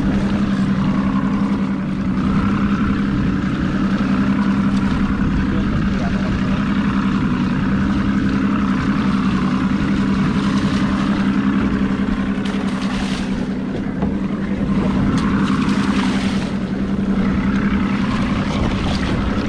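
Boat's outboard motor running steadily with an even low hum, under a rush of wind and water noise, with a few brief noisy bursts past the middle.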